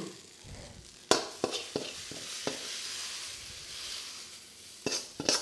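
Metal ladle clinking and scraping against a wok in sharp strokes as stir-fried flat rice noodles are pushed out into a bowl. Between the strokes the hot noodles hiss and sizzle steadily, and two louder clinks come near the end.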